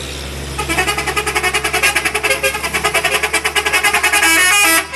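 Telolet multi-tone musical horn on a large vehicle playing a rapid run of short staccato notes that step up and down in a tune. It starts about half a second in over a steady engine rumble and cuts off sharply near the end.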